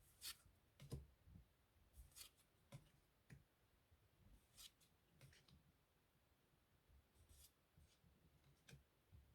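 Faint, scattered soft swishes and clicks of Pokémon trading cards being handled and slid past one another, one every second or so.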